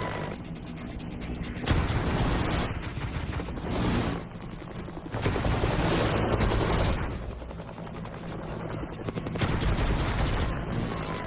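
Home-theater sound-test track of cinematic sound effects: dense noisy clatter over a deep rumble, swelling into loud stretches every two to three seconds.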